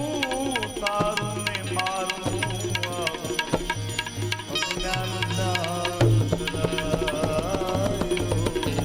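Gujarati devotional bhajan music: tabla playing a steady rhythm of deep bass strokes under a wavering melody line.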